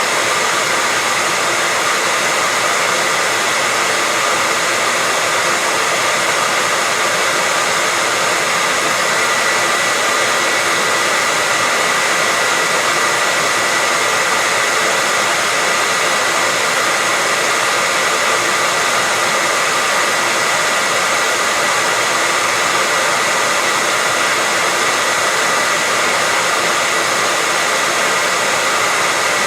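Hair dryer blowing steadily: an even rushing hiss with a faint steady whine near 2 kHz, unchanging throughout.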